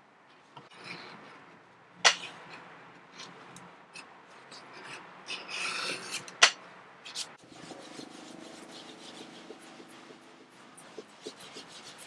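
A small knife blade cutting and scraping along the edges of undyed full-grain leather pieces on a cutting mat: intermittent rasping strokes, with two sharp clicks about two seconds in and about six and a half seconds in. A low steady hum comes in about halfway through.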